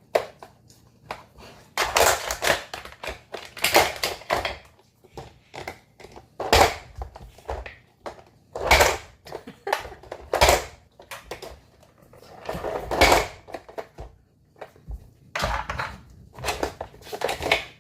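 Plastic dog puzzle toy clattering and knocking in short irregular bursts as a Weimaraner puppy noses and paws at its drawers and sliding pieces, hunting for hidden food. The bursts come every second or two and bunch together near the end.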